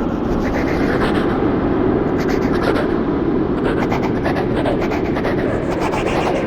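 Creepy echo sound effect: a steady, dense, rumbling wash of echoing noise, with faint scratchy streaks above it.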